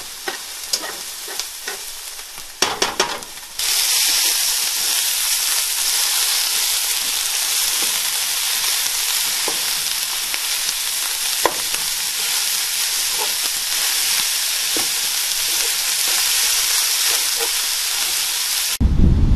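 Ground meat, diced peppers and onions sizzling in a frying pan, with a spatula clicking and scraping against the pan in the first few seconds. About three and a half seconds in, the sizzle jumps louder and holds steady. A loud low rumble cuts in near the end.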